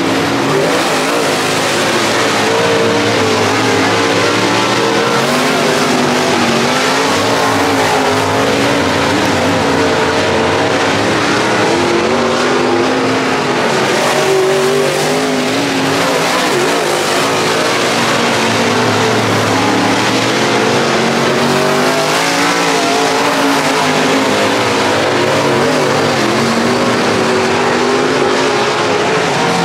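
Dirt super late model race car V8 running hard around the track, its engine pitch rising and falling slightly with throttle through the laps.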